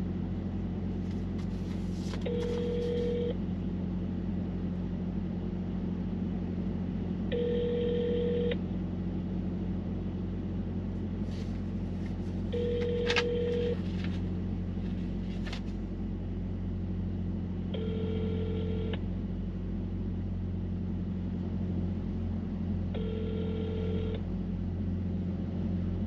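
Telephone ringback tone from a smartphone on speaker: five short rings about five seconds apart, the line ringing with no answer. Under it runs a steady low hum in the semi-truck cab.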